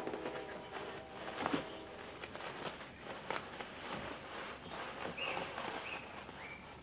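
Paper towels rustling and crinkling, with irregular light scuffs and taps, as two kittens paw and wrestle in them on a tile floor. There are a few short, high squeaks near the end.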